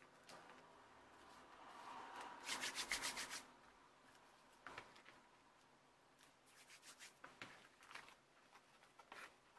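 Fingers rubbing glued lace trim down onto a paper envelope to make it stick: faint, quick scratchy rubbing strokes, loudest in a short run about two and a half seconds in and again more lightly around seven seconds, with a few soft taps and paper rustles in between.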